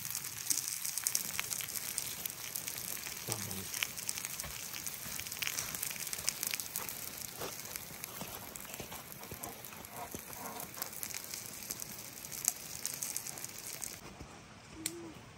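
Crackling and sizzling from a hand-made barbecue fire: a steady hiss full of small sharp pops. It cuts off suddenly near the end.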